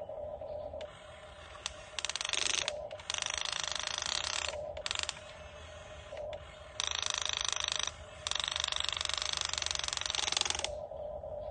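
Geared mechanism grinding and whirring in on-off bursts of up to two or three seconds, over a steady hum.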